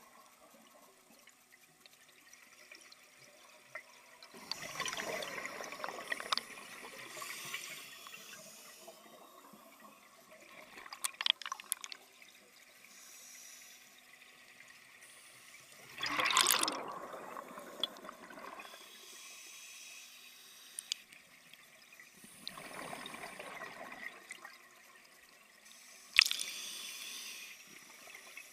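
Scuba regulator breathing underwater: a thin hiss on each inhalation, then the bubbling rush of exhaled air, three breaths. A few sharp clicks sound near the middle, and the loudest one comes about two seconds before the end.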